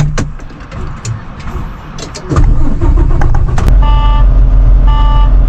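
Clicks and knocks, then a truck's diesel engine starts about two seconds in and runs with a loud, steady, low rumble. From about two-thirds of the way through, an electronic beep sounds about once a second over the engine.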